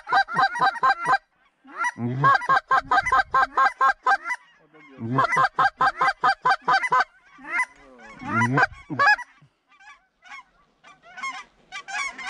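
Hand-held goose calls blown in fast, even runs of clucks, about six notes a second, each run starting with a low grunt; three runs with short breaks. Fainter, looser honking follows near the end.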